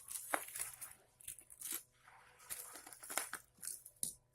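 Parcel packaging being handled and torn open by hand: irregular crinkling, rustling and tearing, with a few sharper crackles.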